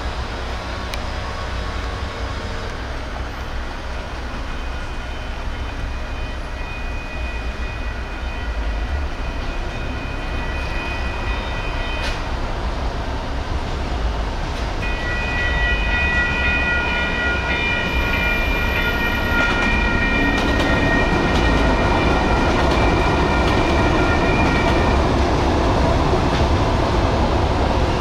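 Sacramento Regional Transit CAF light rail train approaching and passing through a street crossing, its rumble growing louder through the first half and then holding. High steady whining tones come and go over the rumble.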